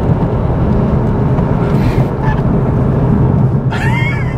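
Steady engine and road noise inside the cabin of a moving Toyota GR Yaris, and near the end a brief toot of its horn, a mild, unaggressive beep that is never going to upset anybody.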